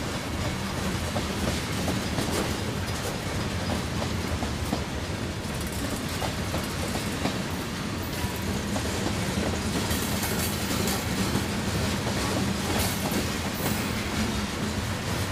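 Mixed freight train rolling past steadily: a continuous rumble of steel wheels on rail, with irregular clicks as the wheels cross rail joints.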